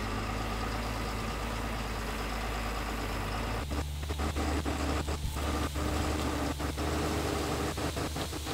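Sisu Nasu tracked vehicle's engine running steadily as it tows an empty boat trailer through reeds. From about three and a half seconds in, the engine note shifts and the trailer frame knocks and rattles over the rough ground.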